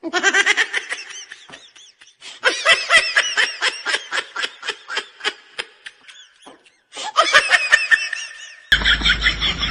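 High-pitched laughter in quick repeated bursts, in three runs separated by short silences. About nine seconds in it stops abruptly and a steady background with a low rumble takes over.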